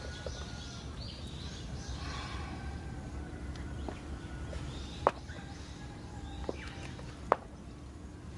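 Outdoor ambience: a steady low rumble with birds chirping, broken by two sharp clicks about five and seven seconds in.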